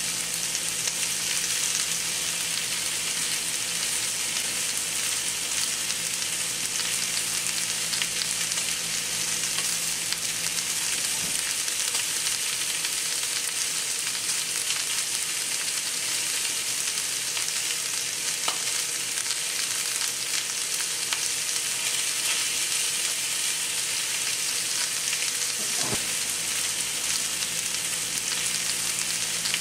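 Two New York strip steaks sizzling steadily as they sear in a hot cast-iron skillet.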